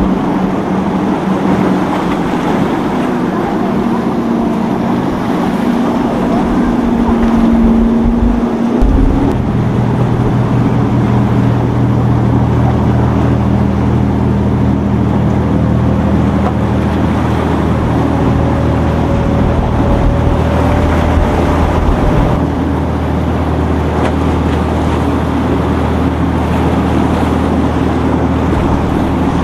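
Motorboat engines running steadily, with wind buffeting the microphone. About nine seconds in, a deeper, stronger engine drone takes over.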